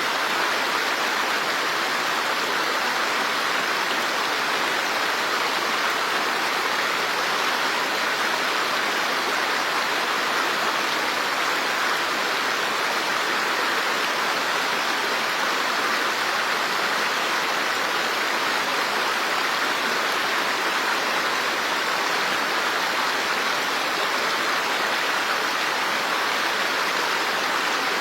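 Running water rushing steadily, like a stream or small waterfall: an even, unbroken hiss with no separate splashes or drops.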